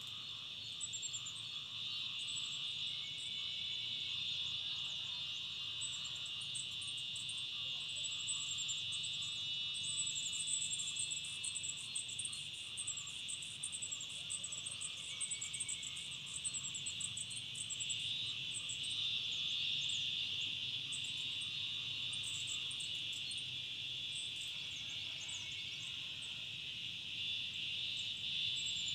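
Steady, high-pitched chorus of crickets or similar insects, with runs of faint, very high rapid chirps over it, thickest in the middle.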